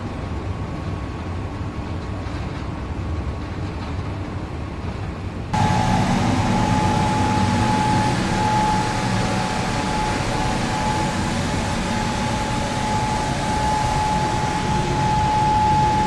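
Industrial stainless-steel microwave sterilization machine running with a steady mechanical noise and a low hum. About five and a half seconds in, the noise suddenly gets louder and a steady high-pitched whine joins it.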